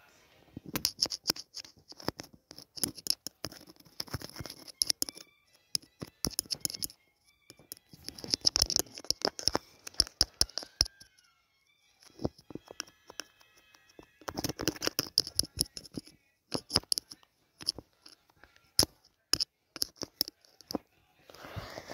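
Objects being handled close to the microphone: crinkly rustling and many sharp clicks, coming in several bursts with short pauses between them.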